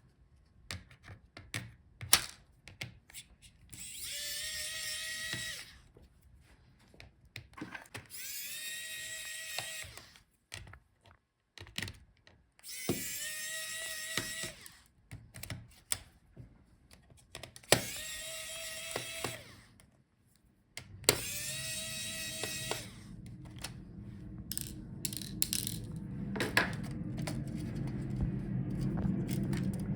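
Electric screwdriver running in five short spurts of about one and a half to two seconds each, backing out screws; its motor whine rises as it spins up and then holds steady. Small clicks and handling noises fall between the spurts, and a steady low hum builds over the last several seconds.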